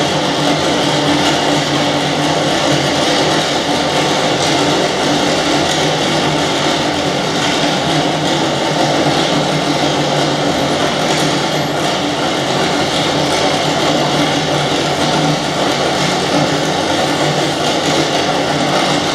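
Soundtrack for a stage performance: a steady, dense wash of noise with a few low held tones underneath and no beat.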